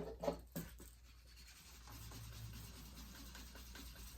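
Edge of a wetted vegetable-tanned leather sheath being burnished by hand-rubbing with a slicker: a faint, even rubbing that sets in about halfway through, after a few light clicks near the start.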